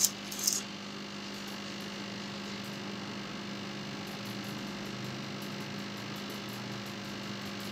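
Steady electrical mains hum over a faint hiss, with a couple of light clicks at the very start.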